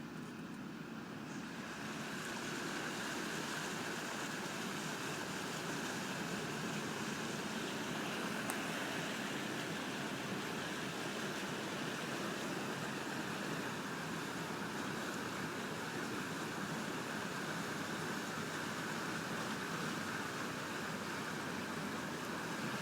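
Floodwater of the swollen Río Guadiaro rushing steadily across the cut-off road, a constant churning roar of fast water that swells over the first couple of seconds and then holds.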